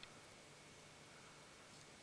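Near silence: faint room tone with one faint click right at the start.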